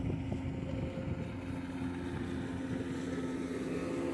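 An engine running with a steady, unchanging drone.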